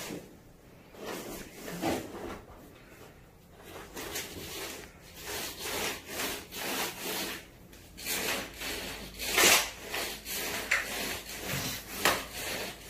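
Handling noise: irregular rubbing and rustling swishes of fabric brushing a handheld phone, loudest about three quarters of the way through.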